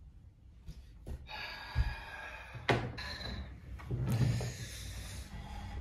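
A wooden dining chair being handled and pulled out as someone sits down at a wooden table: a few sharp knocks and a low thump.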